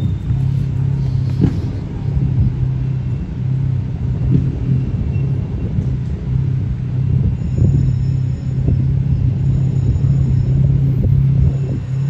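Steady low engine hum and traffic rumble from vehicles idling at a closed road barrier, with a few soft low thumps.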